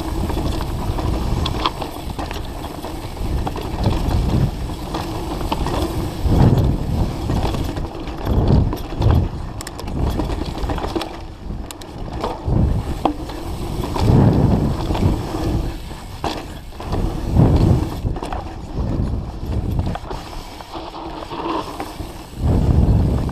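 Mountain bike riding fast down a dirt singletrack: the tyres rumble over dirt and roots while the chain and frame rattle and click, surging louder over each bump.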